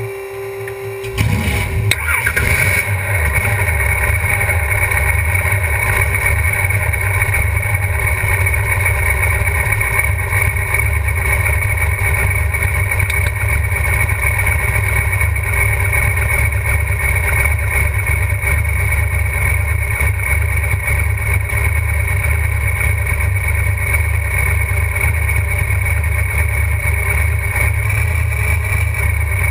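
A drag-racing Pontiac GTO's engine, heard from inside the cockpit, fires about a second in after a steady whine. It then runs steadily without revving.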